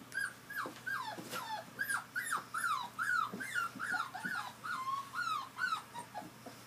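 English springer spaniel puppies whimpering and whining: a rapid string of short, high-pitched cries, each rising then falling, about two a second, thinning out near the end.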